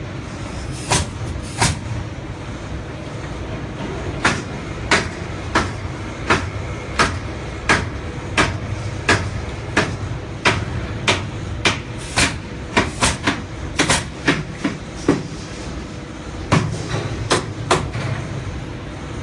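Hammer striking wood again and again, about one and a half blows a second with a couple of short pauses, as wooden bracing is nailed between glass crates; a steady low rumble runs underneath.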